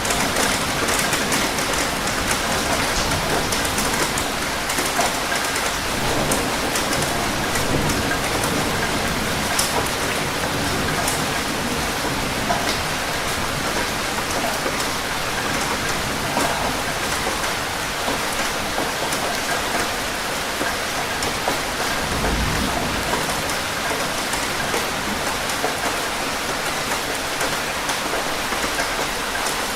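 Steady rain falling, a dense hiss of drops striking a surface, with a brief low thump about two-thirds of the way through.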